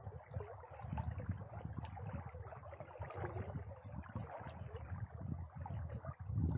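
A strong river current swirling and lapping close by: an uneven rushing with low rumbles and small irregular splashes.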